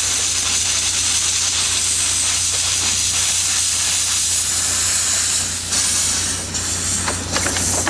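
Miniature ride-on steam locomotive hissing steadily as steam escapes, with a jet of steam and water spraying out from low on the engine.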